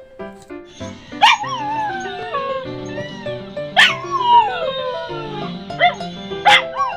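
A dog howling three times, each call starting sharply high and sliding down into a long falling wail, over background music.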